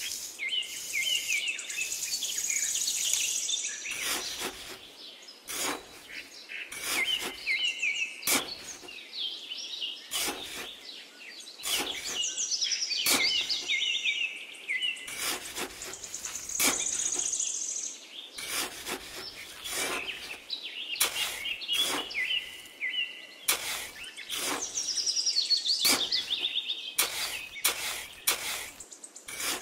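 Small birds chirping steadily in short repeated phrases, with irregular sharp scrapes and crunches of a small trowel digging into damp sand.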